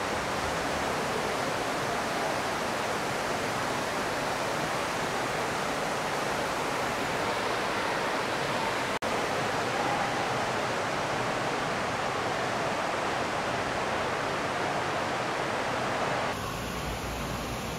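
Steady, even rush of running water in a river otter pool. It breaks off for an instant about halfway through and turns slightly quieter near the end.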